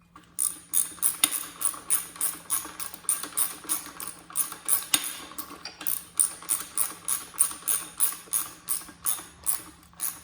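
Ratchet wrench clicking in a steady rhythm, about three clicks a second, as bolts are run in to draw the transmission up against the engine.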